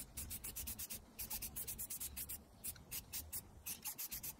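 Aerosol spray-paint can in use on a steel part, a quick rhythmic run of short hissing bursts, about six a second, with a couple of brief pauses.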